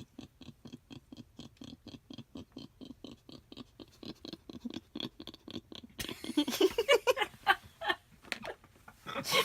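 A ratcheting hand tool clicking rapidly and evenly, about five clicks a second, for some six seconds. Louder handling and rustling noise follows.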